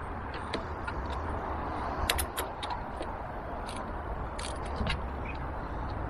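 Light clicks and taps of small screws and nuts being handled on a plastic top-box mounting plate, the sharpest about two seconds in and a few more near the end, over a steady low background noise.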